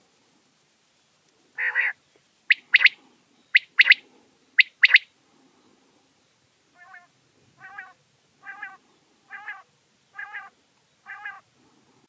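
Common quail calling: one longer call, then six sharp, loud notes in three quick pairs. Near the end come six softer, lower calls at about one a second.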